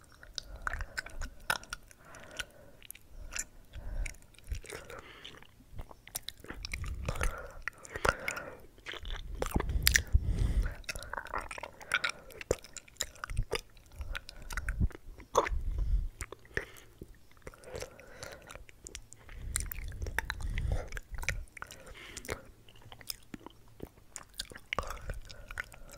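Close-miked ASMR mouth sounds: an irregular run of wet mouth clicks and smacks, with denser, louder stretches about eight to eleven seconds and twenty seconds in.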